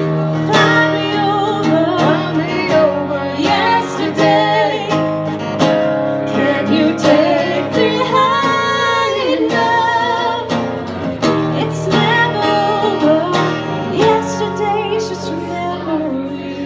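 A woman singing, with vibrato, to a strummed acoustic guitar.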